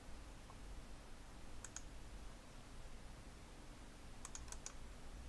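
Faint clicks of a computer mouse and keyboard: a double click about a second and a half in, then a quick run of four clicks about four seconds in, over a low steady hum.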